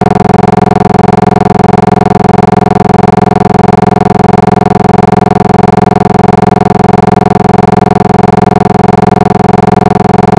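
Loud, steady electronic drone: a buzzy chord of unchanging tones that holds without a break.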